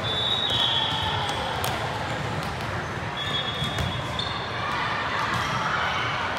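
Busy indoor volleyball gym: scattered ball thuds and slaps from play, with background voices echoing in the hall. A high steady tone sounds for a second or so near the start and again around the middle.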